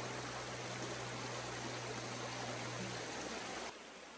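Shallow rocky stream rushing over stones, a steady hiss of running water with a low hum underneath. About three and a half seconds in, both drop abruptly to a quieter water sound.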